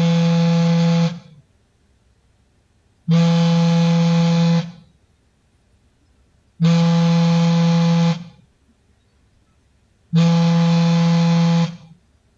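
Samsung smartphone vibrating for an incoming call: a steady low buzz in pulses about a second and a half long, repeating roughly every three and a half seconds, four times.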